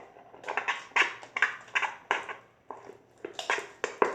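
Homemade Elmer's-glue slime being squeezed and pulled apart by hand: a quick run of short sticky pops and crackles, about three a second.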